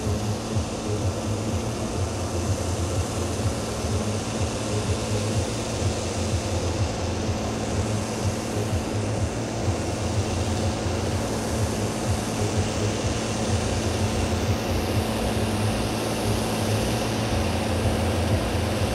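New Holland tractor's diesel engine running steadily while pulling a brake sled slowly down the track.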